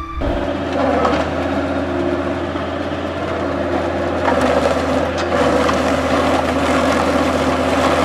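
Log-shredding machine running steadily, its engine humming under the continuous crunching and splintering of wood being shredded.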